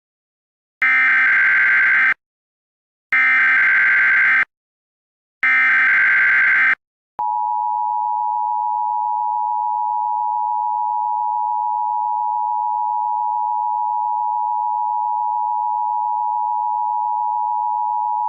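Emergency Alert System alert tones: three short bursts of SAME digital header data, each just over a second long, a second apart. Then the steady two-tone EAS attention signal sounds for about eleven seconds, marking the start of an emergency broadcast message.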